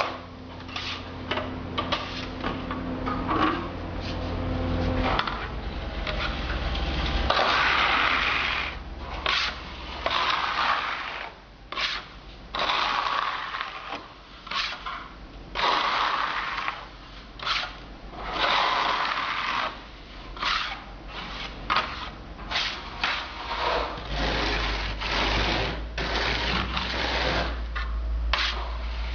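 Hand float scraping over fresh grained mineral render in repeated strokes, some short and some longer, with brief pauses between them as the render's texture is worked in.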